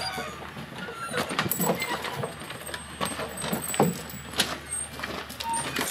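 Irregular boot footsteps knocking on a wooden boardwalk as several people walk out through swinging saloon doors, over a steady low hum.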